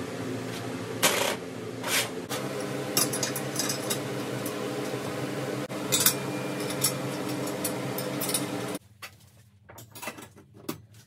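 Metal parts clinking and clattering as a steel exhaust flange and bolts are handled and fitted onto a welding jig, over a steady hum that cuts off suddenly near the end, leaving a few lighter clicks.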